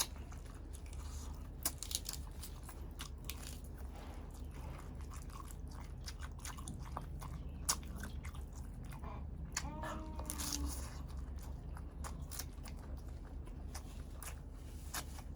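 Close-up chewing and crunching of a balut duck embryo, with repeated small crunches and wet mouth clicks. About ten seconds in there is a brief voiced hum.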